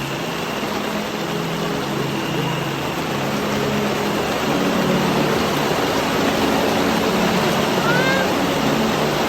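Steady rushing outdoor noise with faint voices in the background, and a brief high chirp about eight seconds in.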